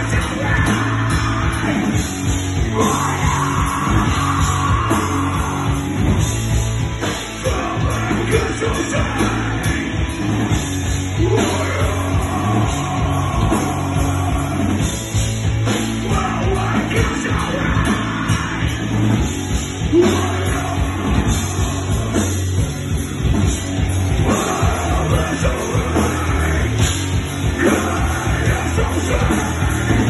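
Heavy metal band playing live at full volume: electric guitar, bass and drums, with yelled vocals over them.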